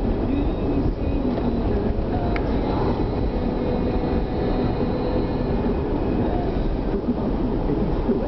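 Car driving along a street, with a steady rumble of engine and tyres on the road heard from inside the cabin.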